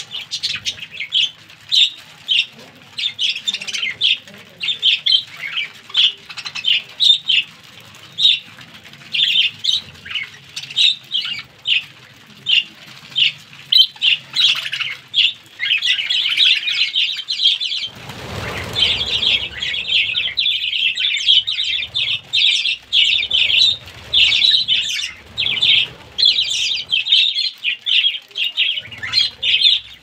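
A flock of budgerigars chattering continuously, a dense stream of short, high chirps and warbles. A brief rush of noise comes a little past halfway.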